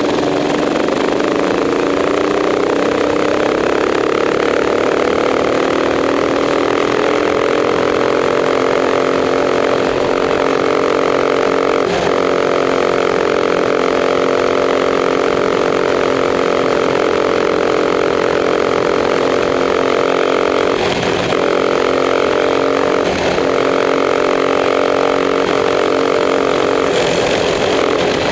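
Racing kart engine at speed, heard from onboard: its pitch climbs over the first several seconds as it accelerates, then holds steady at high revs for a long stretch. The revs dip briefly a few times near the end and drop off just before the end.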